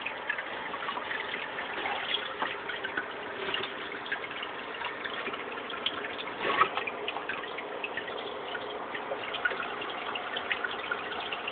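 Steady trickling-water hiss with faint scattered ticks, and a brief louder knock about six and a half seconds in.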